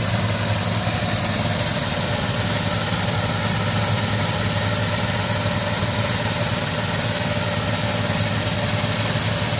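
Engine running steadily at a constant speed, an even hum with no change in pitch.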